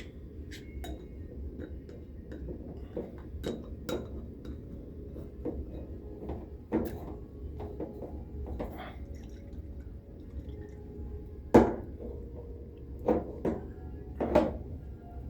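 Kitchen clatter as a glass jar is rinsed and emptied: scattered clinks and knocks of glass and dishes, with a few louder knocks near the end.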